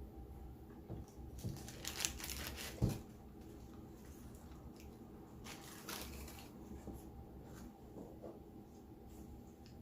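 Paper food wrapper rustling and crinkling in two short spells as it is handled, with a sharp click near the end of the first.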